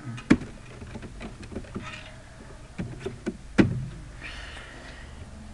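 Computer keyboard keys clicking in a handful of separate keystrokes, the loudest near the start and about three and a half seconds in.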